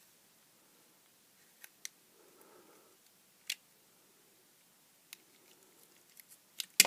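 Faint, scattered clicks and scrapes of a craft knife blade cutting into the soft silicone gel potting of a small LED lamp. A quick run of clicks ends in a louder clack near the end.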